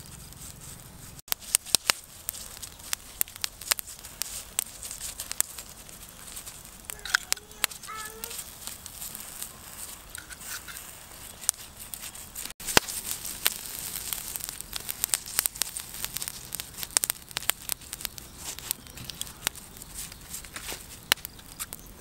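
Charcoal fire crackling with frequent sharp pops over a steady hiss, under a whole duck roasting on a spit.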